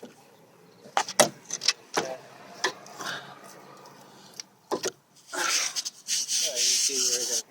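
Brake caliper and bolts being handled and fitted on a wheel hub: several sharp metal clicks and knocks, then a couple of seconds of scraping and rubbing as the parts are worked into place.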